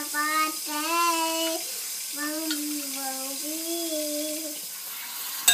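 A child singing a slow, wordless tune in long held notes, in two phrases. A sharp click comes near the end.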